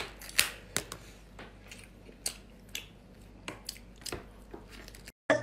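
Cooked lobster tail being pulled from its shell, then the meat bitten and chewed: scattered soft clicks and crackles. The sound cuts off abruptly near the end.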